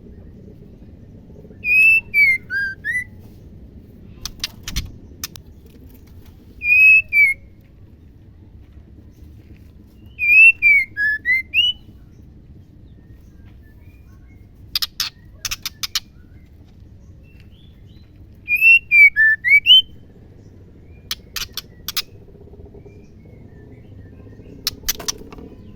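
Female white-rumped shama calling: four short phrases of clear, slurred whistles a few seconds apart, with groups of sharp, dry clicks in between.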